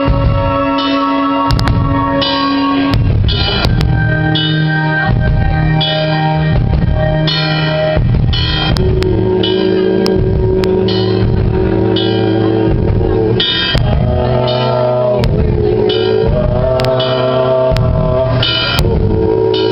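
Live prog-rock band playing an instrumental passage: a drum kit keeps a steady beat under held melodic notes that change pitch every second or two.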